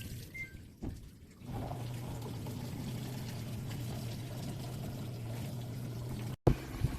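A short two-note electronic beep from a Samsung washing machine's control panel, then about a second and a half in, water starts running into the machine through its water inlet valve, a steady pouring hiss with a low hum. Near the end the sound cuts out briefly, followed by a couple of sharp knocks.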